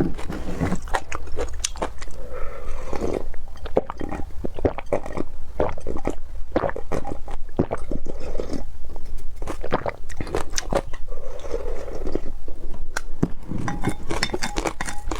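Close-miked mouth sounds of a person eating: wet chewing and biting, with many sharp smacks and crunches throughout.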